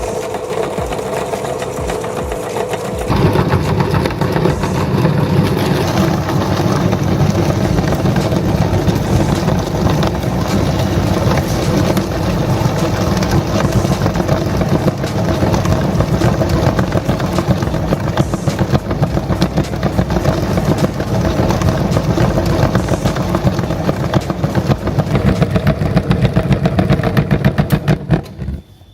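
Electric meat grinder running steadily with a fast, fine rattle, getting louder about three seconds in, then cutting off abruptly near the end.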